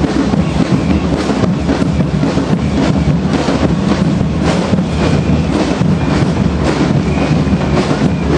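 Murga drum band playing: bass drums and cymbals beating a dense, fast rhythm, loud and rough on the microphone.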